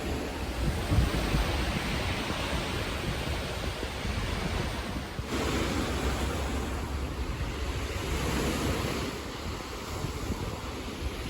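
Wind buffeting the microphone over a steady outdoor rush of noise, with an abrupt change in the sound about five seconds in.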